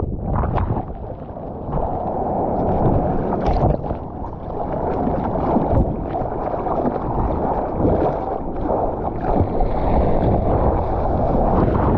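Sea water sloshing and splashing around a GoPro in the surf, with wind rumbling on the microphone, the sound of a surfer out on the water.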